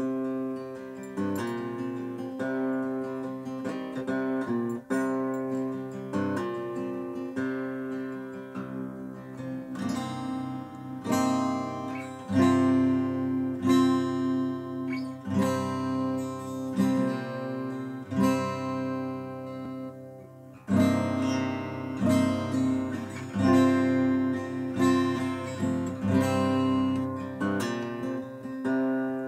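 Acoustic guitar played solo: quieter chords for the first ten seconds or so, then louder strummed chords, easing off briefly near twenty seconds before the strumming picks up again.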